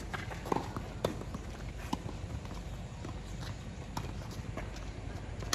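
Tennis rally on a hard court: a ball struck by racquets and bouncing, a few sharp pops at uneven intervals over a steady low background rumble.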